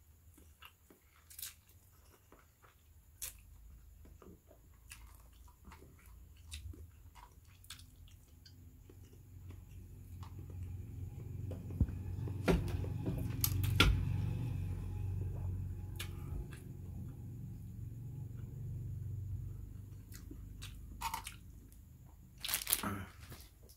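Mouth sounds of eating instant fried noodles: slurping a forkful at the start, then chewing with scattered small clicks and smacks. A low rumble swells through the middle and fades again.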